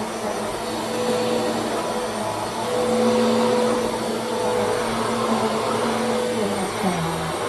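Vacuum cleaner running steadily, its motor hum briefly dropping in pitch near the end.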